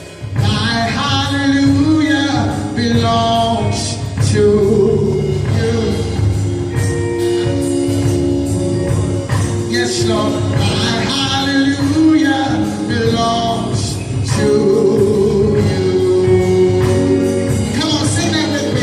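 Gospel music: voices singing sustained lines over a full instrumental accompaniment.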